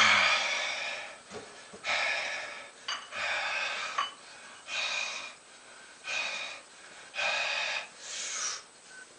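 A man breathing hard and forcefully from exertion: a loud strained exhale with a falling groan at the start, then about six heavy, hissing breaths roughly a second apart.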